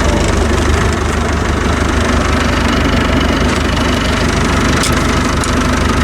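Massey Ferguson 265 tractor's diesel engine running steadily, heard from the driver's seat as the tractor drives out to the field.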